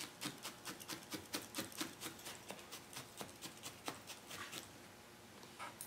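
A felting needle in a hand tool stabbing repeatedly through wool into a burlap-covered felting pad: a run of soft, quick taps at about four a second, thinning out after about four seconds.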